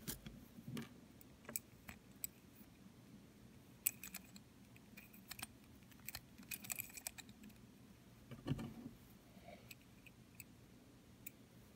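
Faint, scattered clicks and light metallic taps from handling a brass rifle-casing pen body and its small parts, as the ink refill and spring are fitted into it. A duller knock comes about eight and a half seconds in.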